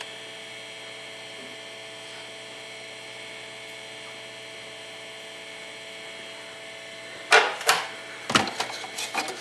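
Steady electrical hum with several fixed tones. About seven seconds in, a quick cluster of knocks and rattles as removed fire alarm devices are handled in a box.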